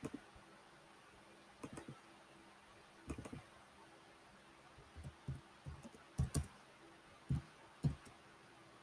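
Faint computer mouse clicks and keyboard keystrokes: a few single clicks in the first few seconds, then a quicker run of keystrokes from about halfway in as a short answer is typed.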